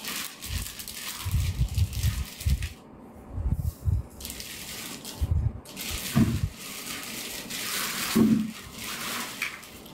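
Clear plastic packaging bag rustling and crinkling in fits as it is pulled and pushed down off a newly unboxed baby carry cot, with a few dull knocks from handling.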